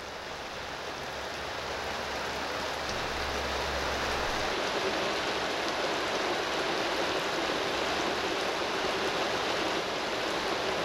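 Steady rain falling, swelling a little over the first few seconds and then holding even.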